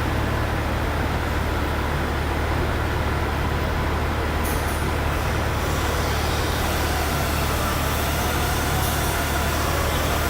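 Steady mechanical running noise: a constant low hum under a broad rushing hiss, from running machinery, with the hiss brightening slightly about four and a half seconds in.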